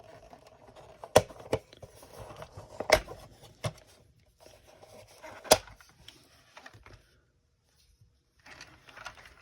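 Plastic Transformers toy being handled: parts knocking and clicking sharply about five times, with faint rustling in between.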